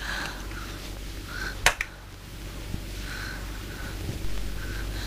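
Quiet film soundtrack with a low steady hum and a single sharp click a little under two seconds in.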